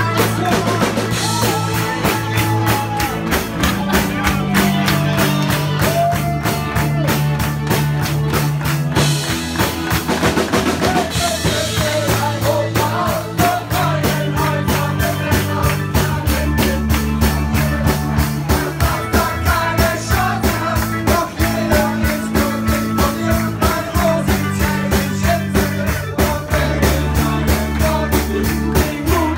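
Live rock band playing, with a drum kit keeping a fast steady beat under bass notes and a wavering lead melody.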